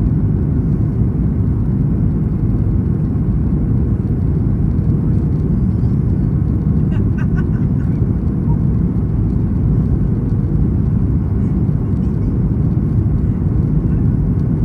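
Steady low roar inside the cabin of a Boeing 737 MAX 8 airliner in descent: airflow and its CFM LEAP-1B turbofan engines.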